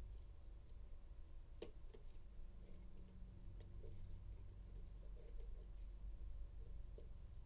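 Faint small metallic clicks and ticks of a KW1 Lishi pick working the pins inside a padlock cylinder, with one sharper click about two seconds in, over a low steady hum.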